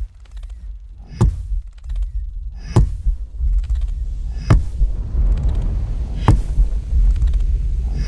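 A deep steady rumble with a heavy thump about every second and three-quarters: the rhythmic pounding of a thumper on sand, picked up by microphones buried in the ground.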